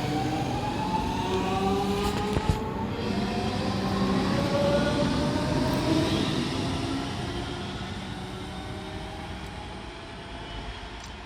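DB class 425 electric multiple unit accelerating away, its traction converters whining in several tones that rise together in pitch over wheel and track rumble. This is the whine behind its nickname 'Quietschie'. A single sharp knock comes about two and a half seconds in, and the sound fades over the last few seconds as the train draws away.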